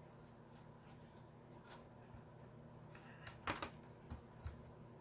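Quiet room tone with a few faint clicks and knocks from hands handling hard parts, the clearest a double click about three and a half seconds in and two small knocks after four seconds.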